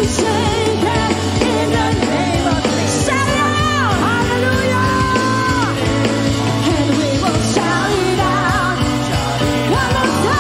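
A live worship band and a congregation singing an upbeat worship song, led by a woman singing into a microphone, with a long held note a few seconds in and some shouting from the crowd.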